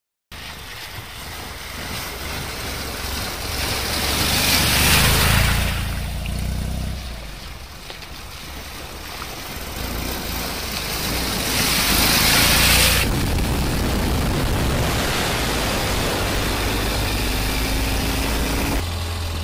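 Ural sidecar motorcycle's flat-twin engine running while riding, under a steady rush of wind and water noise, as the bike splashes through a shallow river. The rushing swells louder twice, about five and about twelve seconds in.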